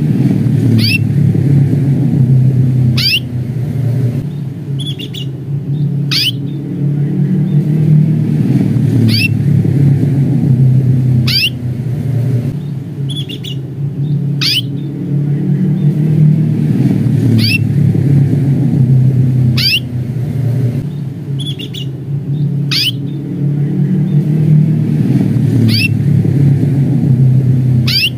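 Domestic canary giving short, high 'cuit' call notes, one about every two to three seconds, with a fainter double note in some gaps, over a loud, steady low rumble.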